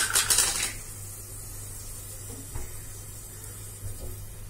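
A brief noisy scrape or rustle from handling the oil jar in the first second, then a low steady hum with a couple of faint knocks as oil is poured into the aluminium pressure cooker.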